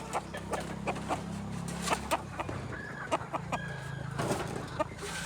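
Crossbred kampung × Bangkok chickens clucking: many short, sharp calls in quick succession, with a couple of longer held calls about halfway through. A steady low hum runs underneath.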